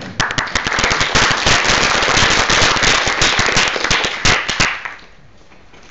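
Audience applause: many hands clapping in a dense patter with some sharp, distinct claps standing out, thinning to a few last claps and stopping just before five seconds in.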